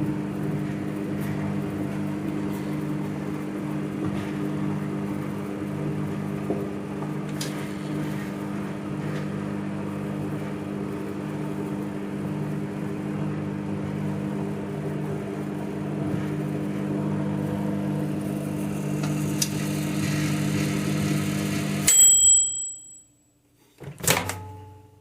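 Microwave oven running with a steady hum. About 22 seconds in, the hum cuts off with a short high-pitched beep at the end of the cooking cycle, and a sharp click follows about two seconds later.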